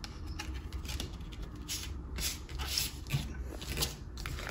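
Hands handling a CD and its cardboard gatefold case: a run of short rubbing and scraping sounds of disc and card, loudest about two to three seconds in.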